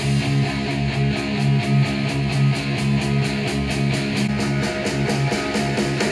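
Rock song with guitar and a steady beat, played through a pair of Mackie CR5-X powered studio monitors and picked up by microphones in the room.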